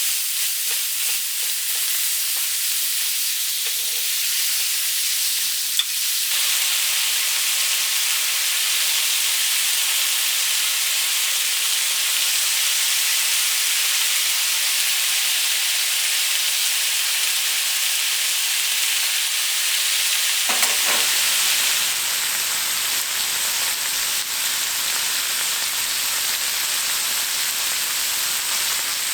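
Food frying in a hot pan, a steady sizzling hiss with a single sharp click about six seconds in. The sound shifts abruptly about six seconds in and again around twenty-one seconds in, when a lower rumble joins the sizzle.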